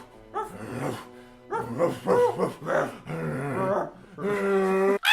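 A person making dog-like vocal noises: a run of short pitched yips and growly cries, then a longer, steadier cry near the end.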